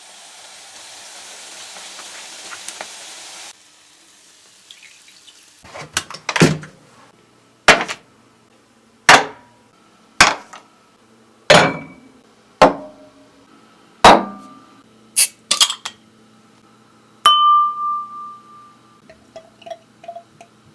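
Kitchen sounds: a steady hiss for the first few seconds, then a run of about nine sharp, heavy knocks roughly every second and a half, each ringing on briefly. Near the end comes a metallic clink that rings with a clear tone for about a second and a half.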